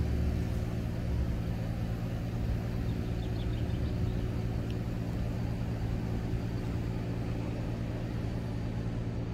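An engine idling, a steady low hum on an even pitch with no change in speed, with a few faint bird chirps partway through.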